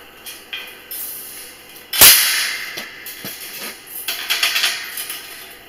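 Welded wire horse-panel cage trap being handled: light metal clicks, one loud clang about two seconds in, then a stretch of wire rattling.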